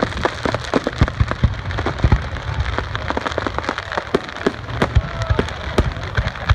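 Fireworks crackling: a dense, irregular stream of sharp pops and snaps over a low rumble, like heavy rain on a surface.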